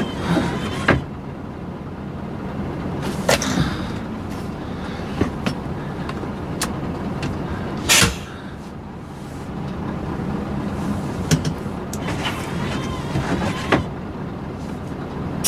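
Scania plow truck's diesel engine running steadily under the load of plowing snow, heard from inside the cab. A few sharp knocks and clatters cut in, the loudest about eight seconds in.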